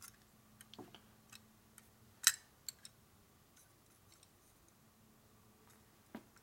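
Scattered light clicks and taps of metal carburetor parts being handled and worked by hand, the sharpest a little over two seconds in.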